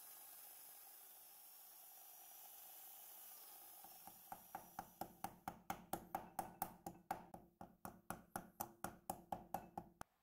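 A faint steady motor hum, then from about four seconds in a rapid series of sharp knocks, about five a second, each with a short metallic ring, as a drilled-out padlock body is rapped against a wooden workbench to shake out its pin springs. The knocking stops abruptly near the end.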